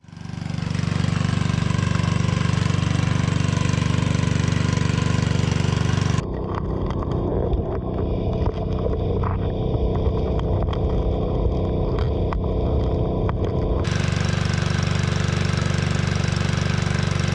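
The small gasoline engine of a 2.5-inch Proline gold dredge running steadily, with water rushing. From about six seconds in until near the end the sound is muffled and heard underwater, full of many small clicks and knocks of gravel and stones on the streambed, then the plain engine sound returns.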